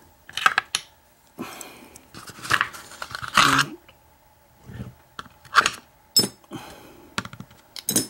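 Brass lock cylinder, aluminium plug follower and small metal lock parts handled and set down on a pinning tray: a string of light metal clicks and clinks, the strongest about three and a half seconds in.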